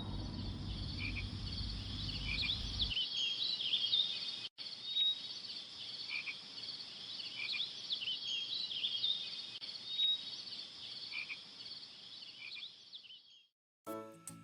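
A dense chorus of frogs croaking and insects chirping: many short, high calls over a steady shrill layer, cutting off near the end. A low rumble lies under the first three seconds and stops abruptly.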